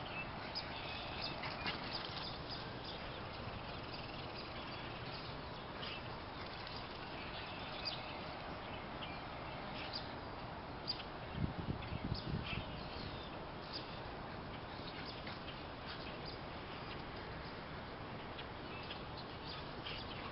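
Outdoor ambience: a steady background hiss with scattered short, high bird chirps throughout. A brief low rumbling comes about eleven seconds in.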